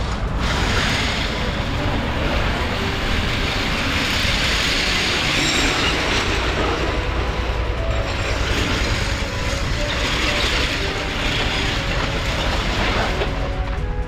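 Background music with held notes and a steady bass, covered for most of the stretch by a dense rattling hiss that sets in just after the start and drops away shortly before the end.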